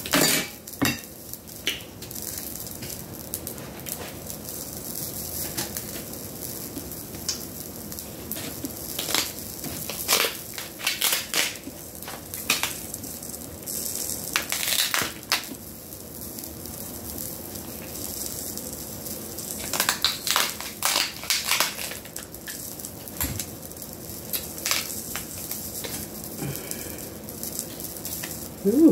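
Red king crab leg shell being cut with kitchen scissors and pulled apart by hand: scattered cracks and crunches of shell, with bunches of them about ten, fifteen and twenty seconds in.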